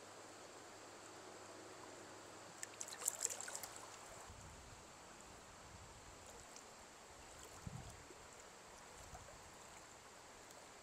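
Faint steady rush of a river running high, with a few brief sharp sounds about three seconds in and a soft low thump later on.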